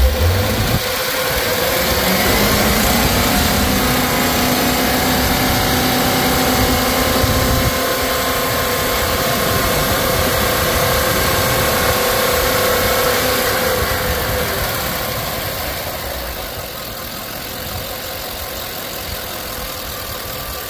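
GM 6.0-litre gasoline V8 running on an engine demonstration: its speed rises about two seconds in, is held at a raised, louder pitch, then drops back to a steady idle about fifteen seconds in. A brief low thump comes right at the start.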